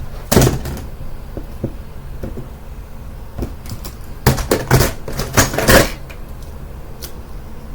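Hard plastic clicks and clacks of a 3x3 puzzle cube being handled and turned, scattered at first and then a quick cluster of louder clacks past the middle.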